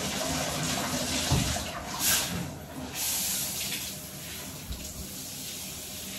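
Water running from a bathtub tap as a wet dog is rinsed in the tub, a steady hiss that dips briefly about two and a half seconds in before running on.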